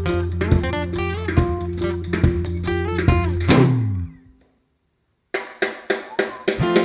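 Instrumental backing music with strummed and plucked guitar and bass. It ends with a downward sweep about three and a half seconds in, then a second of silence, and then a new guitar track starts with sharp plucked notes.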